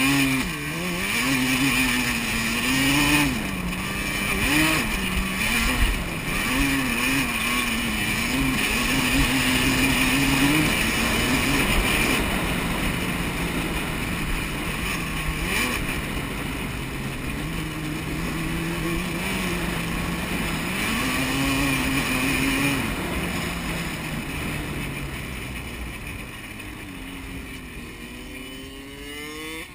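Yamaha Banshee quad's two-stroke twin engine running under hard riding, its pitch rising and falling again and again as the throttle is worked. It eases off and gets quieter over the last several seconds, with a few short revs rising near the end.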